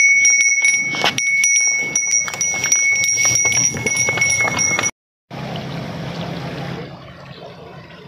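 Brass neck bell on a buffalo ringing over and over as the animal moves, with many quick clapper strikes. After about five seconds it cuts off and a steady noise follows.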